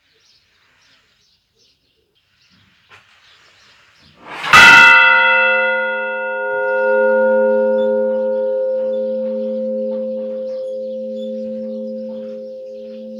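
A church bell is struck once, about four and a half seconds in. It rings on with a long, slow decay, and its low hum swells and fades about every two seconds.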